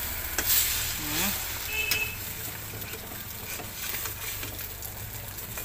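Beaten-egg omelette sizzling in hot oil in a frying pan while a spatula turns it over, with light scraping and clicks of the spatula against the pan.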